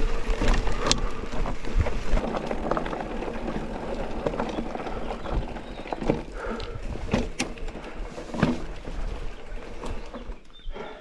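E-mountain-bike tyres rolling and crunching over loose stones, with many scattered clicks and knocks of gravel and rattling bike parts. Under it runs a faint steady whine of the e-bike's motor. The clatter eases off near the end.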